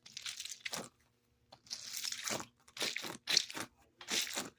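Plastic packaging crinkling and crunching as it is handled and pulled open, in four bursts with short pauses between them.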